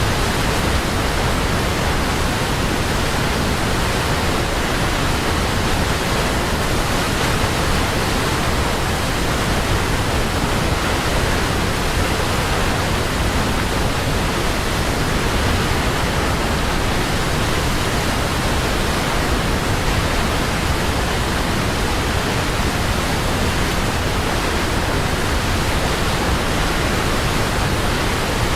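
Waterfall: water rushing steadily, an even, unbroken roar with no changes.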